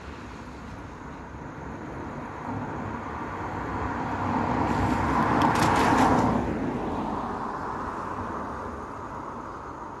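A car driving past on a wet road: the hiss of its tyres on the wet surface builds as it approaches, is loudest about six seconds in as it passes close by, then fades away.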